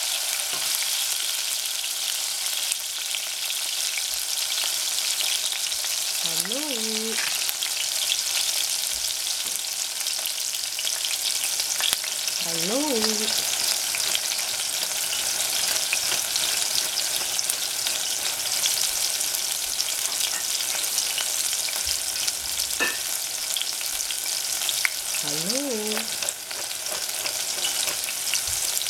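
Chopped green onion sizzling in hot oil in a stainless steel saucepan as it is stirred with a wooden spatula: a steady frying hiss. Three times a short pitched sound that rises then falls is heard over it, about six, thirteen and twenty-five seconds in.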